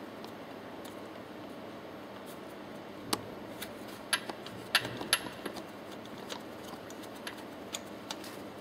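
Light metallic clicks and clinks as the valve clamp, bolt and nut on a Track C1 piston pump head are handled and finger-tightened. The clicks come in a scattered run from about three seconds in, thickest over the next couple of seconds, over a steady low hiss.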